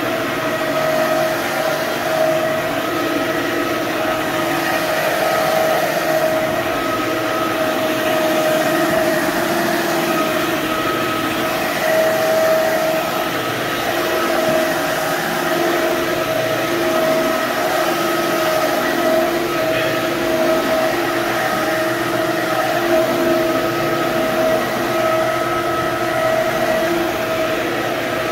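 Corded electric floor-scrubbing machine running steadily on a wet hardwood floor, its motor giving a constant hum with a whine that swells and fades slightly.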